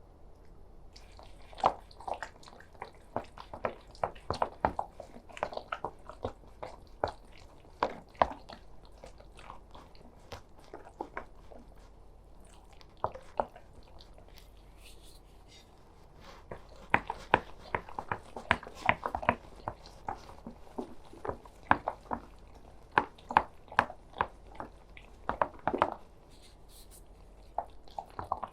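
Soft, wet chicken nugget mixture being squished and worked: irregular bursts of small squelching clicks, busiest in two stretches with a lull in the middle.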